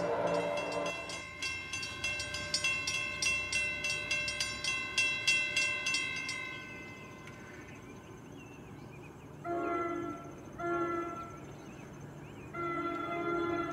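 Railroad grade crossing bell ringing with quick even strikes, about three a second, stopping about six seconds in. A distant train horn then sounds three times, two short blasts and a longer one, over a steady high insect drone.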